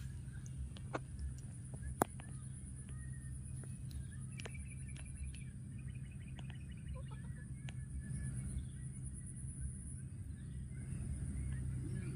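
Rural outdoor ambience: a steady high insect drone over a low steady hum, with a short run of high chirps about five seconds in and a few faint sharp clicks.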